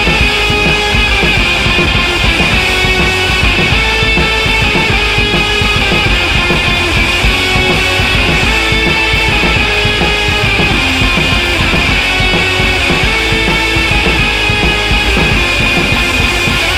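Loud, aggressive rock music with electric guitar and a drum kit, played at a steady driving level.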